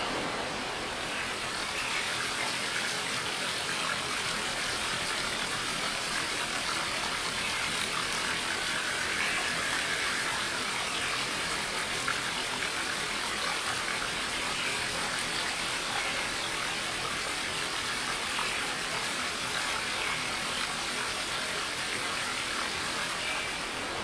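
Water of a small stream flowing and rushing, a steady even noise throughout.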